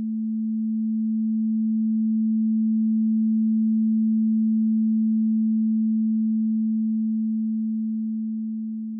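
A pure sine-wave test tone, one low, unchanging pitch just above 200 Hz with no overtones. It swells to a peak about halfway through and fades toward the end. This is the sign of its left and right channels drifting in and out of phase with each other, an interaural phase-difference effect, while each channel stays at constant loudness.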